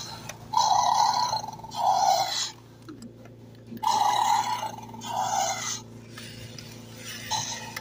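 2013 Fisher-Price Imaginext Spinosaurus toy playing its electronic roar through its small speaker, twice, each roar in two gruff parts, over a faint steady hum from its walking mechanism.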